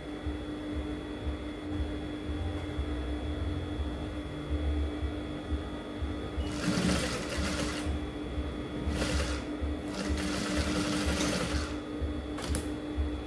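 Electric sewing machine stitching steadily, its motor humming under a fast, even stitch rhythm. Several brief hissing noises come partway through.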